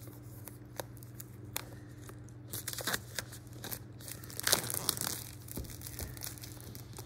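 Scissors snipping and plastic shrink-wrap tearing and crinkling as a product box is cut open: scattered short sharp snips and rustles, loudest about four and a half seconds in.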